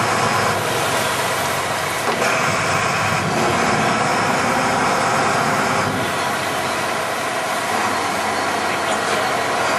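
Fishing boat's engine running steadily under way, mixed with the rush of churning wake water.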